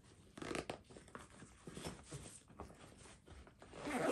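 Rustling and scraping of nylon bag fabric and packed items as they are pushed and shifted into a travel bag's compartment, in irregular bursts that are loudest about half a second in and again near the end.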